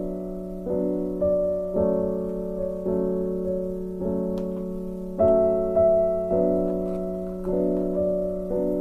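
Background piano music: gentle sustained chords, a new one struck about once a second and fading before the next.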